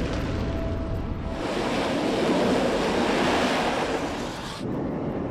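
Jet engine noise of an EA-18G Growler during a carrier catapult launch: a loud, even rushing that swells about a second and a half in and drops away near the end.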